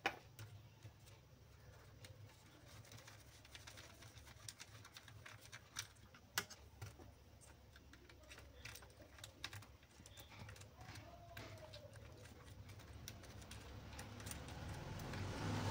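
Faint, scattered light clicks and taps of small tools and parts being handled while a replacement volume potentiometer is fitted to an amplifier board, over a low steady hum. A rougher noise swells up near the end.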